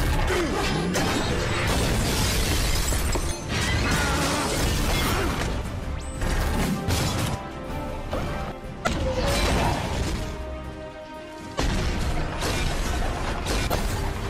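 Action music mixed with dubbed-in robot-fight sound effects: metallic mechanical clanks, crashes and shattering hits. The sound sags briefly and comes back with a sudden loud hit a couple of seconds before the end.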